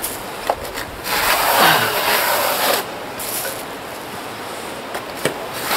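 Steel trowel scraping and spreading plaster adhesive over fibreglass mesh on insulation board, in long rasping strokes with a couple of sharp taps.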